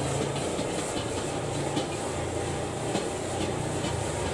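Steady low mechanical rumble and hum with a few faint clicks over it.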